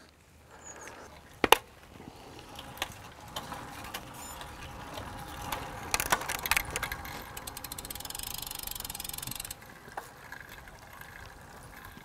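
Road bike's freewheel ticking and clicking as the bike rolls, with a sharp click about a second and a half in. A fast, even run of ticks stops abruptly near the end.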